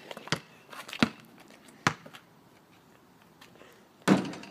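Basketball bouncing on a concrete driveway as it is dribbled: three sharp bounces less than a second apart. Near the end comes a louder hit as the shot reaches the backboard and rim.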